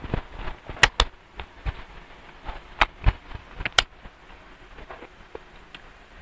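Close-up chewing of a mouthful of kwek-kwek (batter-fried quail eggs), with a string of sharp, wet mouth smacks and clicks. They come thickest in the first four seconds, then thin out.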